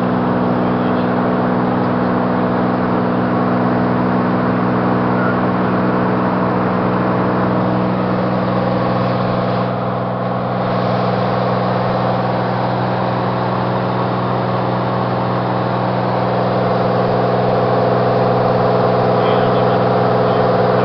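Cirrus SR20 light aircraft's six-cylinder Continental IO-360 piston engine and propeller droning steadily at an even pitch, heard from inside the cabin, with a slight dip in loudness about halfway through.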